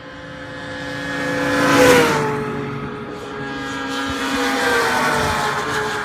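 Ski-Doo snowmobile engines passing at speed: the first sled's engine whine swells to its loudest and drops in pitch as it goes by about two seconds in, then a second sled's engine rises and falls in pitch as it passes a few seconds later.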